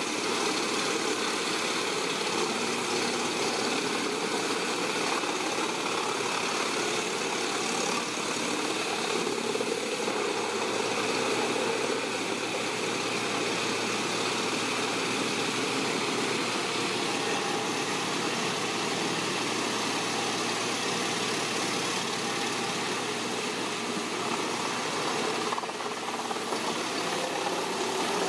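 Industrial drum wood chipper running steadily under load, its engine and toothed feed rollers and cutting drum chewing through logs; a continuous, even mechanical noise.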